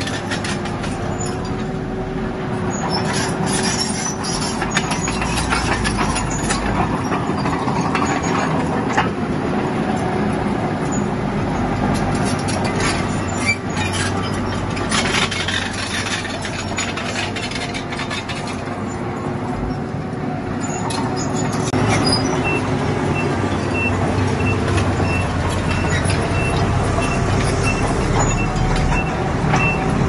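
Bulldozer's diesel engine running steadily under load, with frequent clanking and knocking from its steel tracks and the stone it pushes.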